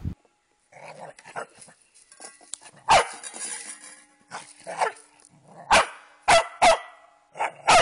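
Corgi puppy barking: about seven short, sharp barks, falling in pitch, starting a few seconds in and coming closer together toward the end.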